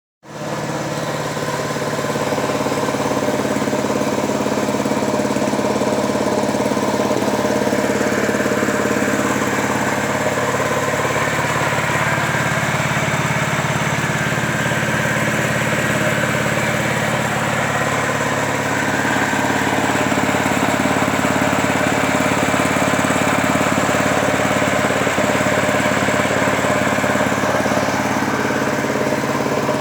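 Flour grinding mill running steadily with a continuous machine drone.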